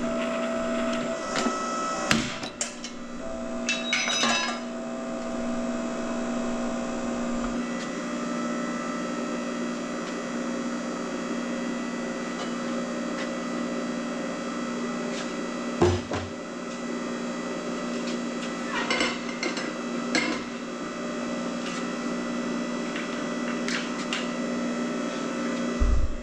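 Electric motor of a shop power tool running with a steady hum, with several sharp knocks and clanks spread through it, about 2, 4, 16 and 19 to 20 seconds in.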